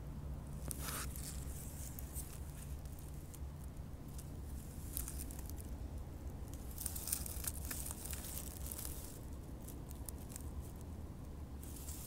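Dry pine needles and forest-floor litter rustling and crackling under movement, in a burst about a second in and a denser run from about five to nine seconds in, over a steady low rumble.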